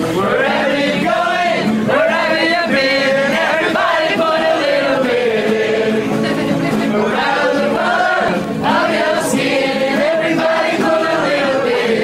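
A group of voices singing together in chorus, with long held notes that rise and fall in pitch.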